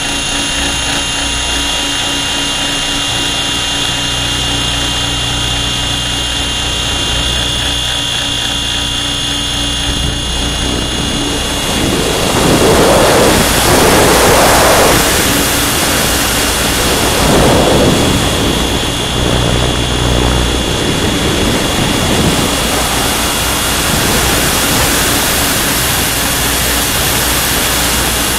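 Radio-controlled T-Rex 700 helicopter in flight, heard from its onboard camera: a steady high whine from the drive and a low steady hum from the rotor. About halfway through, several loud rushes of wind sweep over the microphone as it manoeuvres, then settle back.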